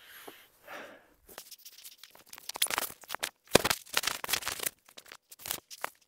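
Irregular rustling, swishing and scraping of a nylon down jacket being taken off, with dry fallen leaves crackling under the camera resting on the ground.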